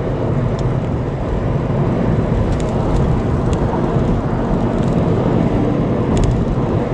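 Steady road and engine noise from a moving car, heard from inside the cabin, a low even rumble with a few faint ticks.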